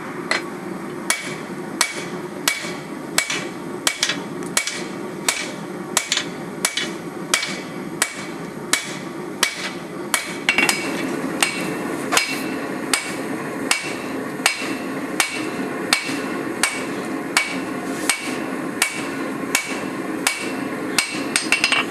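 Steady, evenly paced hammer blows on hot steel at an anvil, roughly one every 0.7 seconds, as a laminated blade billet is forged out. A steady rushing noise runs underneath and gets louder about halfway through.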